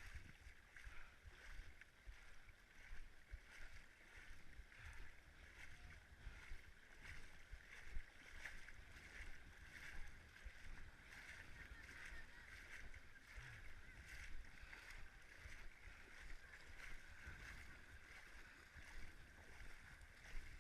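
Steady rushing water with irregular low buffeting of wind on the microphone.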